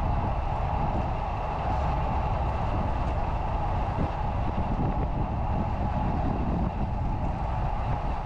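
Wind buffeting the microphone of a camera mounted on a road bike's handlebars while riding at speed, over a steady rumble of tyres rolling on asphalt.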